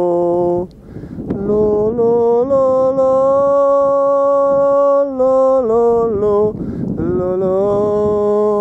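A man's voice singing long, held notes without accompaniment, stepping from one steady pitch to the next, with short pauses for breath about a second in and again past the middle.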